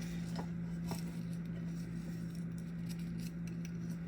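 A spoon stirring tea in a cup, with scattered light clinks and taps against the cup, over a steady low hum.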